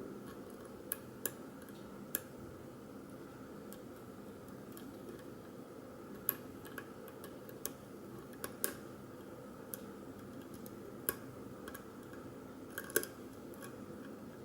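Small irregular metallic clicks and ticks from a lock pick working the pins of a padlock: pin tumblers setting and the pick tapping inside the keyway, over a steady hiss.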